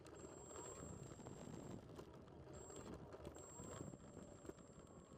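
Near silence: faint wind noise on the microphone, with a thin steady high whine that breaks off twice and a few faint ticks.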